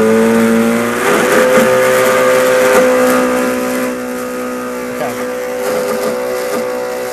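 Electric blender motor running at steady speed with a high whine, whipping a liquid with added xanthan gum into a thick foam; a little quieter from about four seconds in. The motor is labouring under the thickening load and sounds 'unhappy'.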